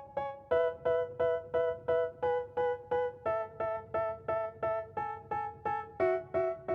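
Background music: a keyboard, like an electric piano, striking a repeated chord about three times a second in an even rhythm, the chord changing every few seconds.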